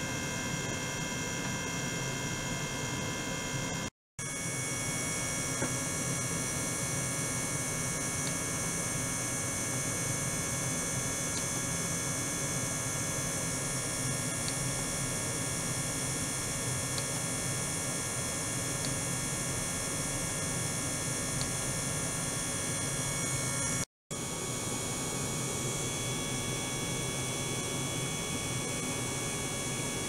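Steady electrical hum with a cluster of steady high whining tones from an ultrasonic oscillator and probe setup running in a water tank. The sound cuts out briefly twice, about 4 and 24 seconds in.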